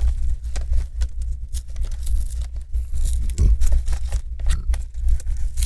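Thin metal side bracket being pried and peeled off a laptop LCD panel: its double-sided adhesive tape tears loose and the metal scrapes, in many small irregular clicks and scrapes over a low steady rumble, with a sharp click near the end.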